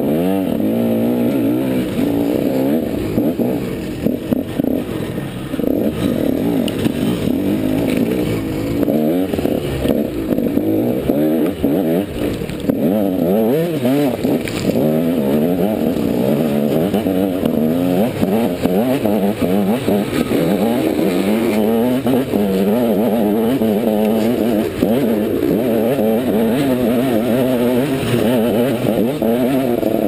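Dirt bike engine running hard under load, its pitch rising and falling constantly with the throttle and gear changes. The engine picks up sharply right at the start.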